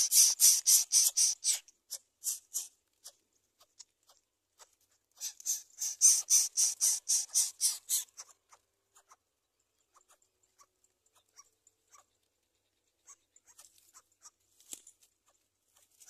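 Greater coucal nestlings begging: a rapid, hissing rasp pulsing about four or five times a second. It comes in two bouts, the first fading out a couple of seconds in and the second running from about five to eight seconds in, followed by only scattered faint clicks.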